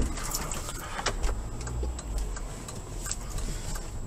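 A car's turn-signal indicator clicking in a steady tick-tock, about one pair of clicks a second, as the car turns onto a side street. Low rumble of the engine and tyres in the cabin runs underneath.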